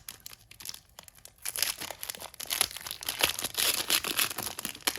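Plastic wrapper of a trading card pack being torn open and crinkled by hand, crackling densely from about a second and a half in.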